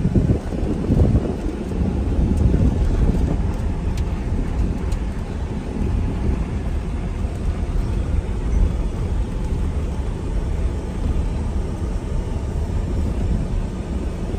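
Ford F-150 pickup rolling slowly along a dirt road, heard from inside the cab: a steady low rumble of engine and tyres on the dirt.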